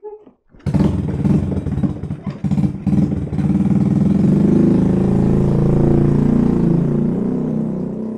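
Small underbone motorcycle engine starting up, running unevenly with some clatter for the first couple of seconds, then revving steadily before slowly fading near the end.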